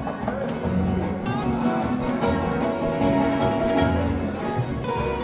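Music led by a plucked acoustic guitar.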